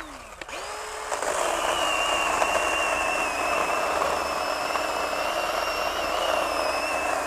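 Craftsman 20V 6-inch cordless pruning chainsaw with a brushed motor, cutting through a 4-inch limb at the saw's maximum capacity. In the first second the motor briefly slows and spins back up. It then runs with a steady whine as the chain cuts steadily through the wood.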